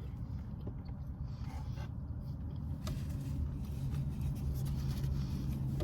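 Steady low vehicle rumble heard inside a car's cabin, with a low hum that grows a little stronger about halfway through. A few faint scrapes and clicks sit over it.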